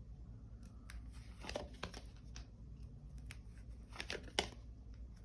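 Tarot cards handled on a table: a few faint, scattered rustles and light taps over a low room hum.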